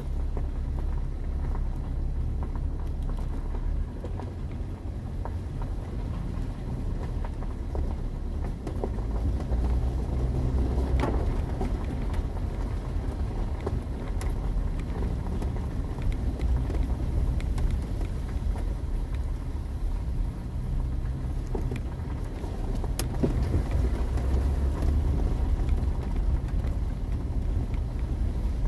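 Steady low rumble of a 4x4 driving slowly along a wet gravel road, heard from inside the cab, with a few light clicks.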